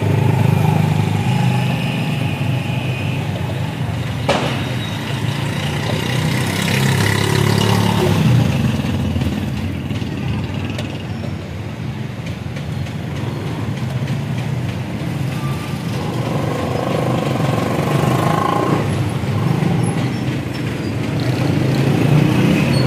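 Steady street traffic noise with a low engine rumble, and one sharp click about four seconds in.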